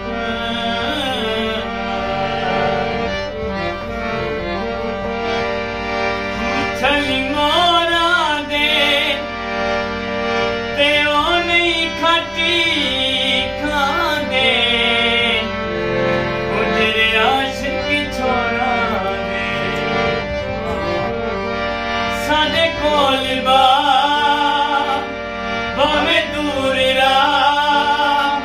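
A harmonium plays held chords and melody while a man sings long, wavering, ornamented phrases in South Asian classical style, with tabla drums accompanying.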